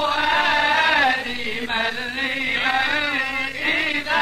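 Male voices chanting an Arabic Sufi religious hymn (a muwashshah), unaccompanied, the melody held and ornamented in long wavering lines.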